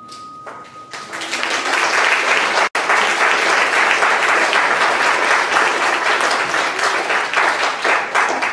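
Theatre audience applauding, building up about a second in as the last ringing note of the music dies away, then starting to fade near the end, with a split-second dropout partway through.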